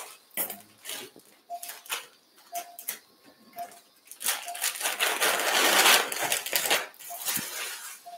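Surgical patient monitor beeping a short mid-pitched tone about once a second with the dog's pulse, over light clicks of instruments. About five seconds in, a louder hissing noise lasts about two seconds.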